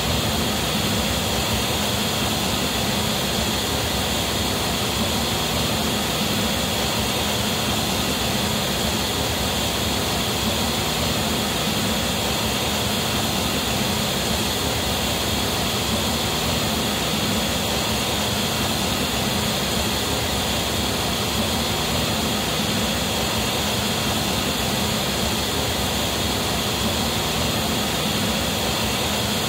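Steady noise test signal played loud through the JBL SRX PA loudspeakers into the hall, as used for a Smaart Live system measurement.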